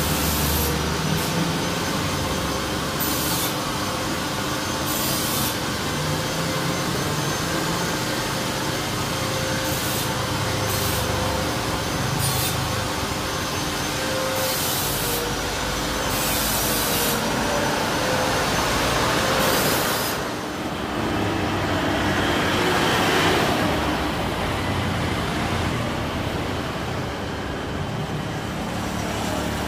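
Jet engines of taxiing Airbus A320-family airliners, a steady running hum with a faintly wavering tone. About two-thirds of the way through, a broader rush swells and then falls away.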